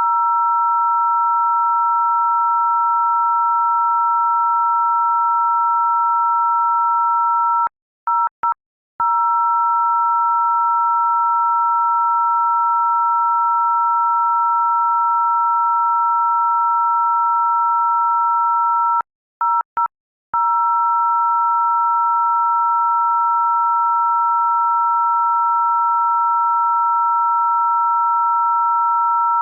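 Loud, steady electronic tone of two pure pitches sounding together, like a phone dial tone. It stutters with a few quick breaks about eight seconds in and again around twenty seconds in.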